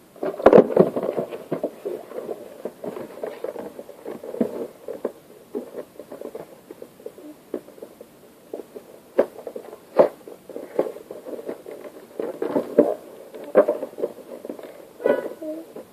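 Plastic toy packaging being handled and picked at, an irregular crinkling and scratching with a few sharper plastic clicks.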